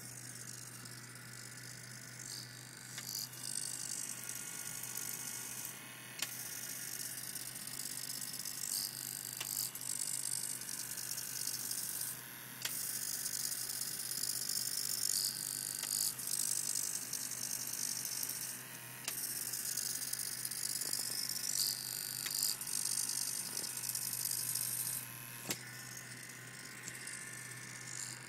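Small hobby motor driven from an Arduino motor shield, its gears whirring with a high buzz in runs of about six seconds that stop briefly between runs, with a few sharp clicks.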